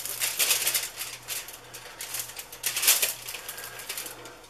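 Aluminium foil crinkling and crackling as hands peel it open and unfold it. It comes in rustling bursts, loudest about half a second in and again about three seconds in, and dies down toward the end.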